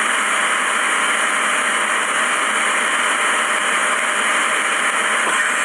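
Steady rushing hiss of an airliner's flight deck, the even noise of air and ventilation around the cockpit.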